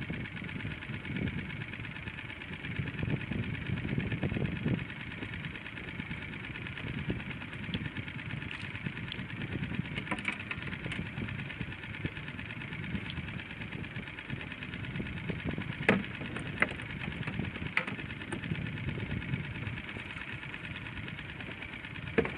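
Small fishing boat's engine idling steadily, with a few light clicks about ten seconds in, around sixteen and eighteen seconds, and near the end.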